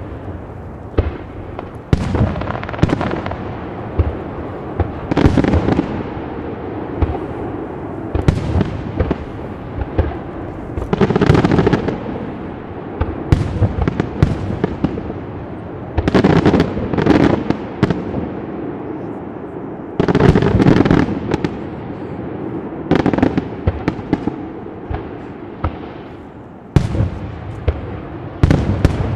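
Aerial firework shells bursting one after another, sharp bangs over a constant rumble of echoes, with heavier clusters of bangs every few seconds.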